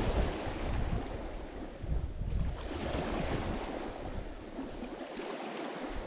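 Lake Michigan waves breaking and washing up on the shore, swelling twice and easing between, with a low wind rumble on the microphone.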